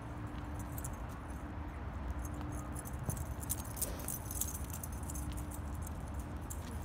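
Small metal pieces jingling in quick light clicks, thickest through the middle, over a steady low outdoor rumble.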